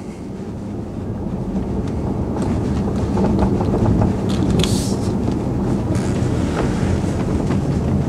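Tesla Model S air-suspension front strut picked up by a microphone clipped at its upper air connection while the car is driven: a dense rumble of tyre and road noise that builds over the first second or two, with several short knocks through it.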